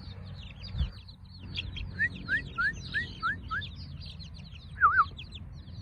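Young chicks peeping, a steady flurry of short high chirps, with a run of six quick rising chirps about two seconds in and a louder wavering call near the end.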